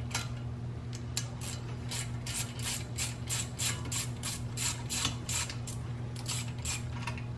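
Ratchet wrench with a T30 Torx bit clicking as it is worked back and forth, undoing the ABS wheel speed sensor's retaining bolt. An even run of sharp clicks, about three to four a second.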